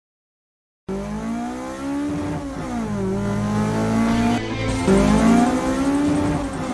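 A car engine revving up and down over and over, its pitch rising and falling, starting abruptly about a second in.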